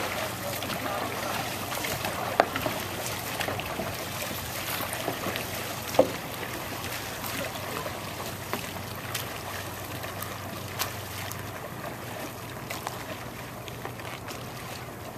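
Dragon boat paddles splashing and stroking through the water, fading as the boat pulls away, with a few sharp knocks.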